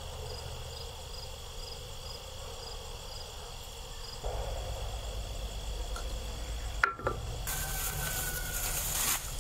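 Crickets chirping, about two short chirps a second over a steady high trill. About four seconds in a low rumble comes in, and near the end a click is followed by a louder hissing rush that covers the chirps.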